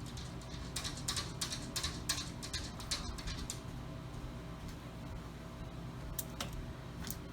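A quick run of light clicks and taps lasting about three seconds, then a few single clicks near the end, over a steady low hum.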